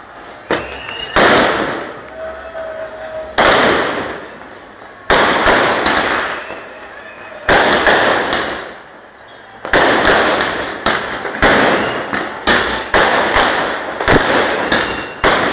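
Firecrackers bursting, sharp bangs each with an echoing tail. They go off at uneven intervals, a few seconds apart at first, then in a quick string of one or two a second in the second half.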